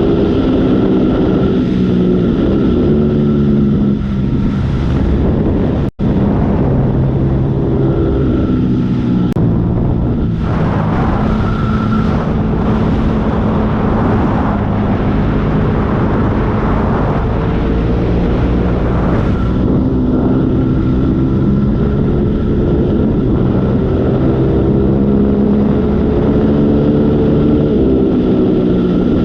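Motorcycle engine running under way, its pitch rising and then stepping down several times as the gears change, with wind noise over it. The sound cuts out for an instant about six seconds in.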